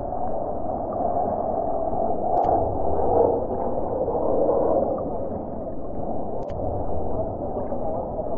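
Jet engines of an aerobatic formation flying past at a distance: a steady rumble with a wavering whine.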